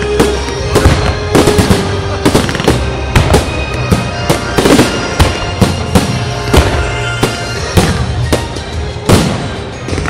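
Aerial fireworks display: shells bursting in a fast run of sharp bangs, about two a second, with crackle between them, over music playing underneath.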